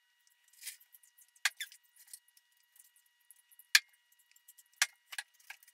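Scattered light clicks, taps and scrapes from handling a PVC pipe and a primer can's dauber lid while purple primer is dabbed onto the pipe end; the sharpest click comes a little under four seconds in.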